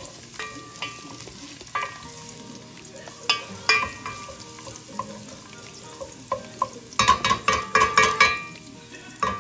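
Ginger and unpeeled garlic sizzling in hot oil in a pan while a utensil stirs them, clinking and scraping against the pan. A quick run of clinks comes about seven seconds in.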